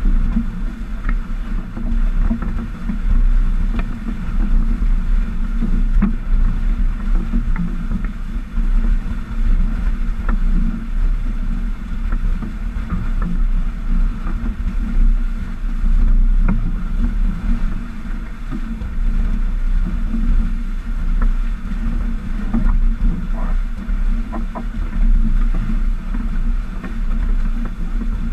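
Steady rush of water along the hulls of a Stiletto 27 catamaran sailing at about 9 to 11 knots, with a low rumble and small scattered splashes.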